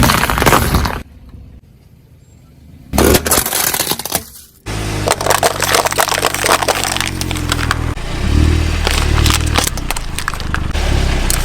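Objects crunching and cracking under a car's tyre in two short bursts. From about five seconds in, the car's engine runs steadily under continued crackling and snapping as more objects are crushed.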